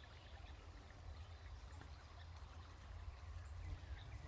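Creek water running faintly and steadily, over a low rumble, with a few faint high bird chirps.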